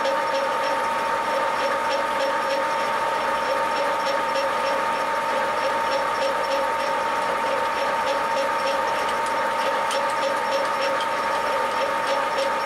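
Metal lathe running steadily with a constant gear whine, while a drill held in the tailstock chuck is hand-fed into the spinning workpiece, with faint irregular ticking over the drone.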